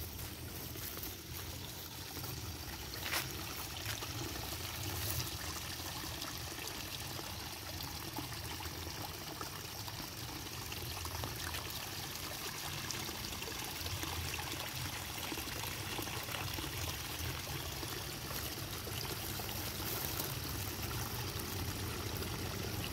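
Water trickling steadily down a narrow rice-field irrigation ditch, growing slightly louder towards the end. A couple of sharp taps sound in the first few seconds.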